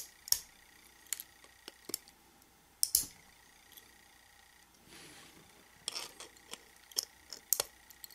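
Needle-nose pliers clicking and snapping small pieces of support material off a 3D-printed plastic figure: scattered sharp clicks and cracks at irregular intervals.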